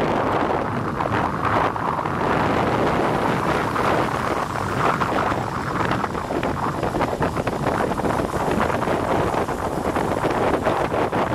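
Wind buffeting the microphone of a camera moving along the road with a group of road cyclists: a loud, steady rushing rumble with constant gusty flutters.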